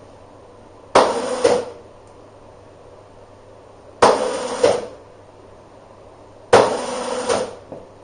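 Hammer striking metal: three double blows a few seconds apart, each with a short ringing tail.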